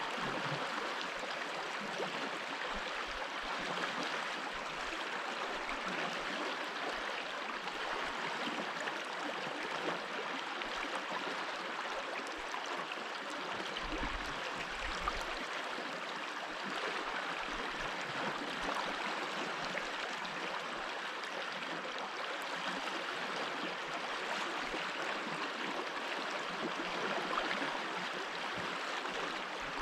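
Mountain stream flowing over stones: a steady rush and gurgle of running water.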